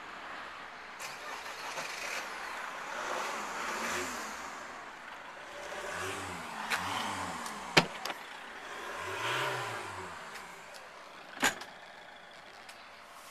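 Motor vehicles passing, their pitch rising and falling as each goes by, with two sharp knocks, one about eight seconds in and one near the end.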